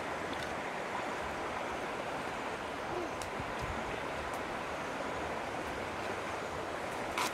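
Steady rushing wind noise, with a short click near the end.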